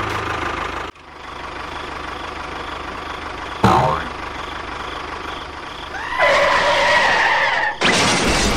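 Dubbed-on sound effects: a tractor engine sound that cuts off about a second in, then a steady lower hum with a brief sudden hit partway through. A pitched sound of several tones follows about six seconds in, and a loud explosion blast begins near the end.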